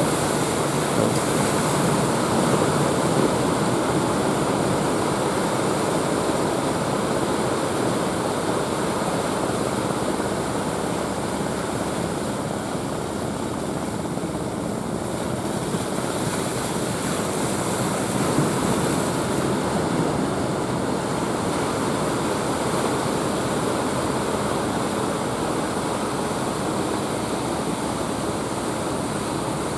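Ocean waves breaking on the beach as a steady, continuous wash of surf noise that swells slightly now and then.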